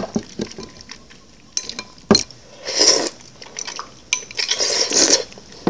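Chopsticks tapping and clinking against a glass bowl, with one sharper knock about two seconds in, then two long slurps of ambuyat and fish soup taken from the rim of the bowl, around the middle and near the end.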